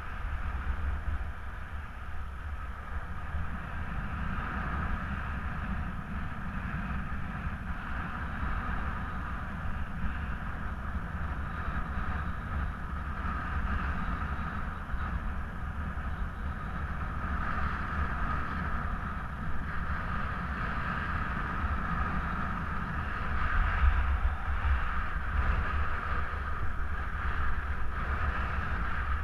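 Airflow buffeting the microphone during paraglider flight: a steady low rumble with a hissing whoosh, gusting a little louder about 24 seconds in.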